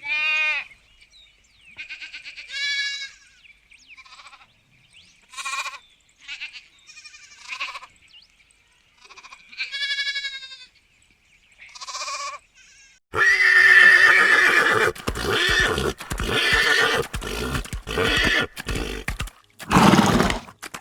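Farm animals calling: a string of short pitched calls, then a louder, rougher run of calls from about two-thirds of the way in.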